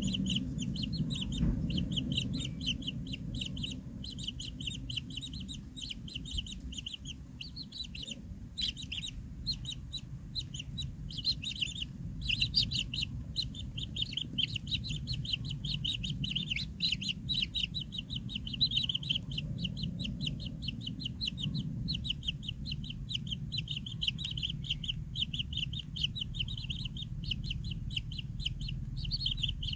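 Kingfisher nestlings giving begging calls in the nest burrow: a rapid, almost unbroken run of high chirps, many a second, pausing briefly a couple of times. A steady low rumble runs underneath.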